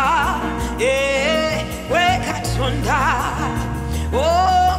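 Gospel worship music: a woman sings long held notes with wide vibrato, sliding up into each one, over a band with steady bass.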